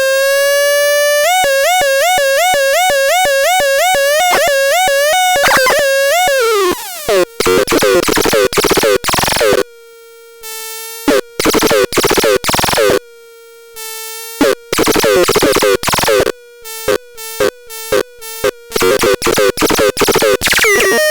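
Synthesizer playing a buzzy tone near 500 Hz. It starts steady, then wobbles in pitch about twice a second, and slides down about six seconds in. After that the tone is chopped into short on-off bursts of uneven length with brief gaps.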